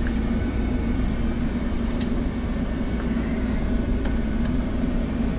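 Combine engine idling steadily, heard from inside the cab as a low, even hum, with a faint click about two seconds in.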